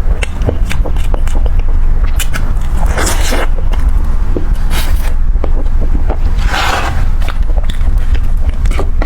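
Close-miked eating: irregular wet clicks of biting and chewing, with a few louder swishes, over a steady low hum.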